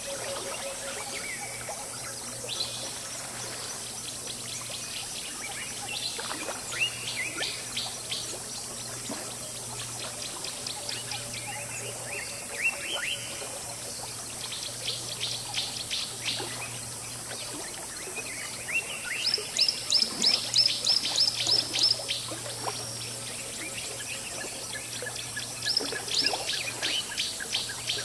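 Jungle river ambience: steady babbling of flowing water under bird calls. Birds give runs of sharp, high, repeated notes, loudest in a burst of about four notes a second around twenty seconds in, with another run near the end.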